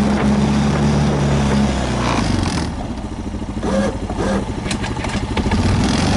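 An engine running with a steady low hum over rushing noise; the hum drops away after about two and a half seconds.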